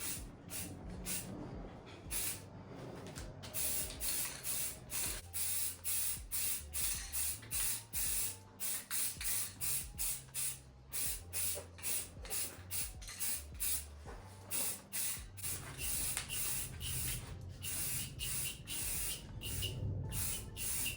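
Spray paint hissing out in many short bursts, about two a second, sparser in the first few seconds, as the colour coat goes onto a bike frame.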